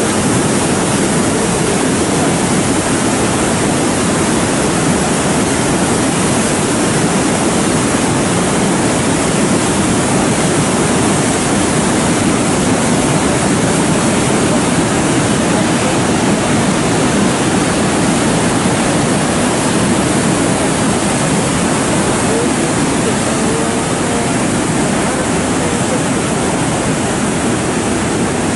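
Muddy floodwater pouring over a lake's concrete spillway weir, a loud, steady rush of water: the lake is full and overflowing after heavy rain.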